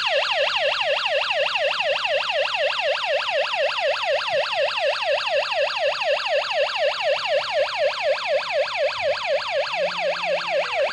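GS G90 GSM burglar alarm siren going off after a sensor is triggered on the armed system. It starts abruptly and wails loudly and steadily, its pitch sweeping rapidly down and up about four times a second.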